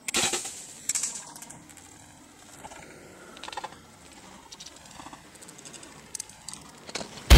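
A bow shot at a whitetail doe: a sharp crack of the bowstring and arrow right at the start, a second sharp sound about a second in, then faint scattered rustles and clicks. The hit sounded good to the hunter, and the arrow struck behind the front shoulder.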